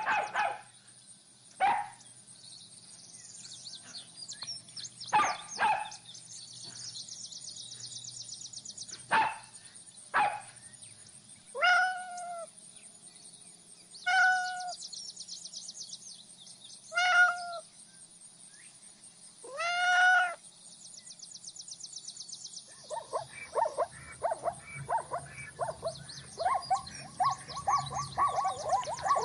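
Young animals calling in turn: a few short, sharp yelps in the first seconds, then four drawn-out rising-and-falling cries a couple of seconds apart, then a fast run of many overlapping chirping cries. A steady faint high hiss runs underneath.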